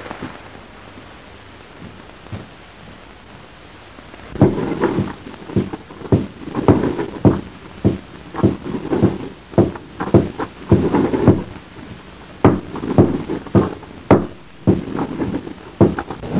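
Faint steady hiss of an old film soundtrack, then, from about four seconds in, a run of dull knocks and thuds, roughly two a second and uneven in strength, with a few sharper clicks among them.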